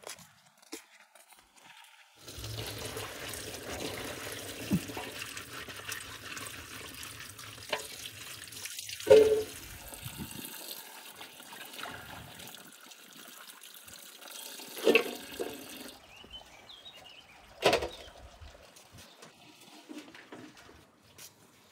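Water pouring from a pipe spout onto chopped green beans in a metal colander and bowl, with a few sharp knocks, the loudest about halfway through. The water stops a few seconds before the end, and one more knock follows.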